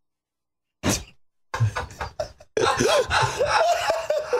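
A single sharp knock just under a second in, then, after a short pause, people laughing hard, breaking out in scattered bursts and building into continuous laughter.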